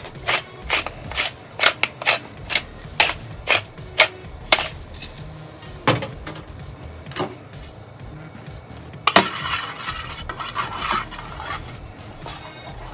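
A wooden pepper mill being twisted to grind pepper, giving a quick run of crunchy clicks about three a second for the first four seconds or so. Later come a few single clicks and a spell of scraping about nine seconds in, from a spoon working the seasoning over fish in a tray.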